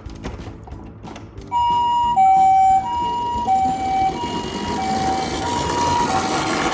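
Toy ambulance minicar's electronic siren giving the Japanese two-tone 'pee-po' call, a high and a low note alternating about every two thirds of a second, starting about a second and a half in. A rumbling noise builds beneath it toward the end.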